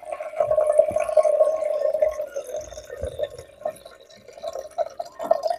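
Water draining off soaked rice from a tilted steel platter and trickling into a small aluminium pot, a steady pouring tone that grows fainter about halfway through, with scattered drips.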